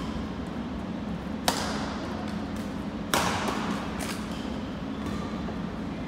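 Badminton rackets striking a shuttlecock in a doubles rally: two sharp hits about a second and a half apart, the second louder, each echoing in the gymnasium over a steady low hum.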